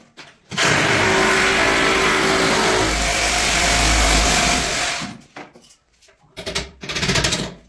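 Corded electric drill running under load for about four seconds, then winding down. A shorter, broken burst of sound follows near the end.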